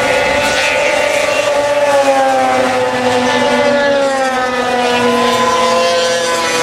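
Arctic Cat 500-class two-stroke snowmobile race engines running at high revs, more than one engine note heard at once. The pitch slides slowly down through the middle and rises again near the end.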